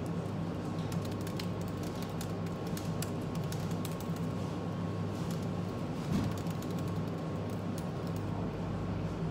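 Fast typing on a laptop keyboard: a quick, irregular run of key clicks over a steady low background hum.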